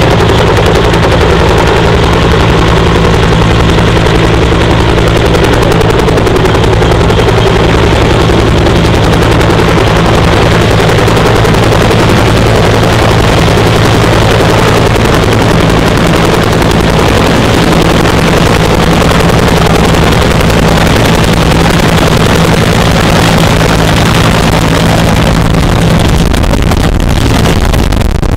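Bell UH-1 Iroquois "Huey" helicopter flying close, loud and steady: the rapid slapping of its two-bladed main rotor over the constant drone of its engine.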